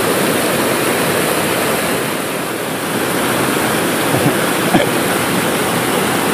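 River water rushing steadily over and around boulders in a rapid, an even, continuous wash of noise, with a few faint short clicks a little after four seconds in.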